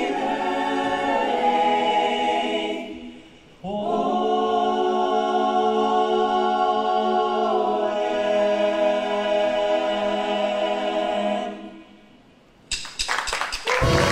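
Ensemble of singers holding the closing chords of a musical-theatre song: one chord, then a longer one of about eight seconds that moves to a new chord partway through and dies away. Near the end applause breaks out.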